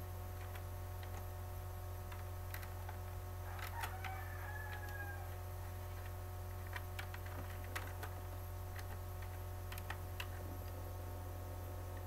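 Scattered clicks of computer keyboard keys being typed, over a steady low hum. A faint drawn-out pitched call sounds in the background about four seconds in.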